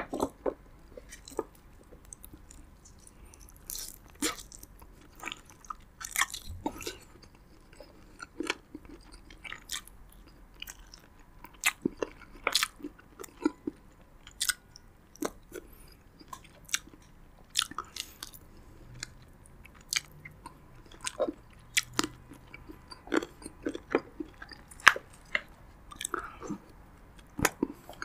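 Close-miked chewing and crunching of roasted pigeon and rice, with many irregular sharp mouth clicks and crackles.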